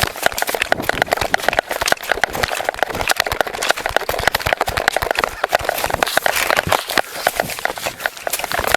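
Rapid, irregular knocking and rustling from a jostled body-worn camera, with hurried running footsteps.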